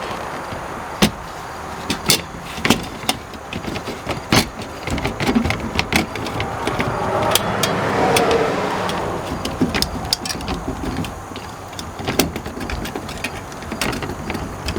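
Highway traffic noise, with one vehicle passing that swells and fades around the middle, and scattered sharp clicks and knocks.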